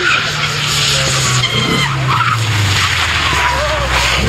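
Rally car engine running hard with tyres squealing and skidding on tarmac through a corner.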